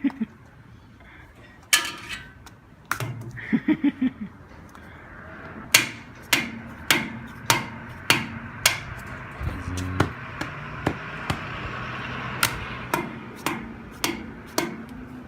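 A series of sharp knocks, something being struck over and over at an uneven pace of roughly one or two hits a second, with a few short vocal sounds a few seconds in.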